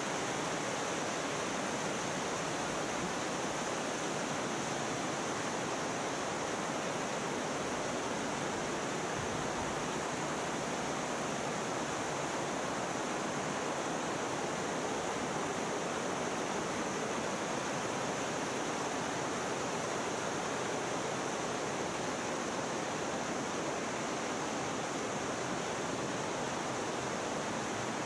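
Mountain stream rushing over rocks in a gorge, a steady, unbroken rush of water.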